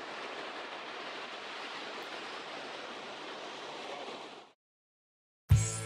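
Steady hiss of ocean surf washing onto a beach, cut off abruptly about four and a half seconds in; after a second of silence, music with guitar and drums begins near the end.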